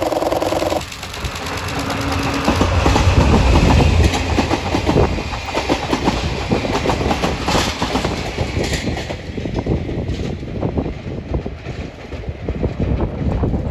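DD51 diesel-hydraulic locomotive sounding a short horn blast, then its twin diesel engines running loudly as it passes, followed by the clickety-clack of old-type passenger coaches' wheels over rail joints and a second DD51 at the rear. The sound fades as the train goes by.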